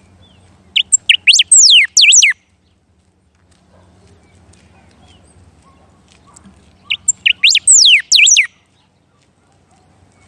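A songbird singing two loud phrases about five seconds apart. Each is a few quick high notes followed by several whistles sliding steeply down in pitch.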